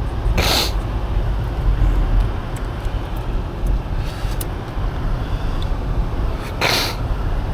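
Steady low motor-vehicle rumble, with two short hissing whooshes, one about half a second in and one near the end.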